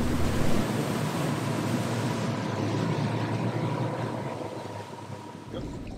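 Boat's outboard engines running at idle under a steady hiss of wind and water, with a faint steady whine. The sound slowly fades over the few seconds.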